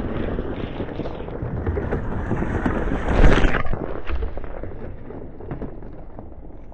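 Ford Maverick Tremor pickup rolling slowly over a camera on a dirt trail, heard from beneath the truck: tyres crunching over dirt and stones with wind noise on the microphone. It is loudest a little over three seconds in as the truck passes overhead, then drops off and fades as it moves away.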